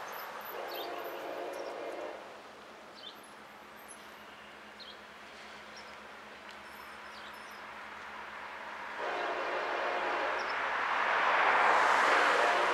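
Freight locomotive horn sounding a blast of about two seconds near the start, then sounding again about nine seconds in as the train draws near, with the rising noise of the approaching train growing loudest near the end.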